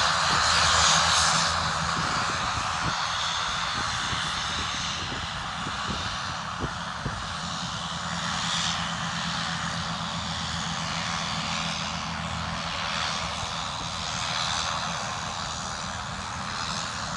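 Short SC.7 Skyvan's twin turboprop engines running as the aircraft taxis, a steady engine sound that is loudest in the first second or two and then holds even.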